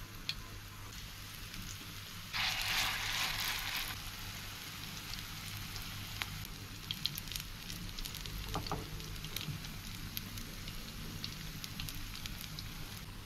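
Shrimp-topped egg batter fritters frying in hot soybean oil: a steady sizzle with scattered pops and crackles. About two seconds in the sizzle flares louder for a second or two as fresh batter meets the oil.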